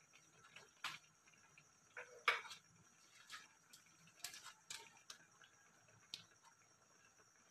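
Rice porridge starting to simmer in an aluminium wok: faint, irregular pops and ticks, the loudest about two seconds in, over a faint steady high hiss.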